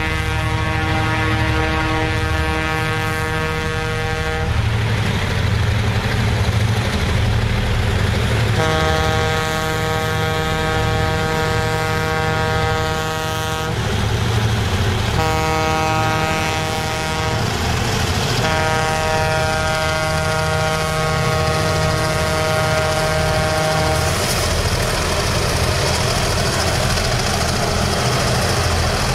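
Diesel freight locomotive's air horn sounding a level-crossing warning as the train approaches: a long blast, a second long blast, a short one and a final long one, over the low rumble of the diesel engines. The horn stops about 24 seconds in, followed by the engine and running noise of the lead locomotives reaching the crossing.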